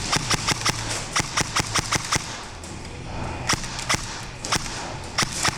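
Airsoft guns firing single shots as sharp cracks, a quick run of about five a second for the first two seconds, then scattered shots.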